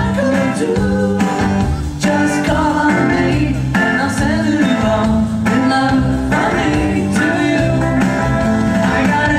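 Live rock band playing a song in 1960s beat style: a lead vocal sung over electric guitars, including a Rickenbacker-style guitar and a violin-shaped bass, with drums keeping the beat.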